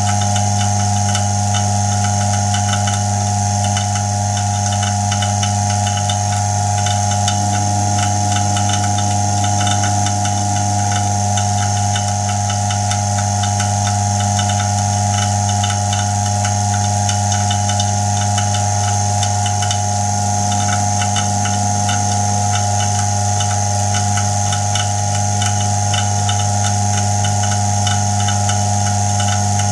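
Homemade Farnsworth fusor running under high voltage: a steady low electrical hum with a buzzing, fast ticking over it, not changing throughout.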